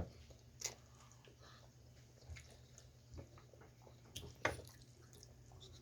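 Faint eating sounds: a person chewing spaghetti pizza, with a scatter of short wet mouth clicks and smacks, the loudest about four and a half seconds in.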